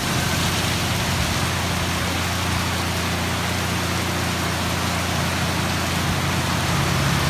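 Heavy typhoon rain and strong wind: a steady, unbroken rush with a deep rumble underneath.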